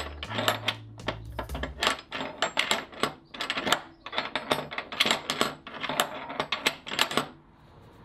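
Small peen hammer tapping over the copper rivets that hold a metal door bolt to an oak door: a quick, uneven run of light metallic strikes, a few a second, that stops about seven seconds in.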